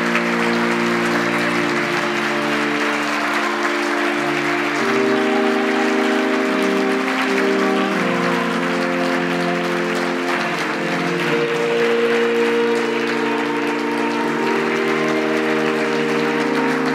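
A crowd applauding steadily over music of long held chords that shift slowly every few seconds.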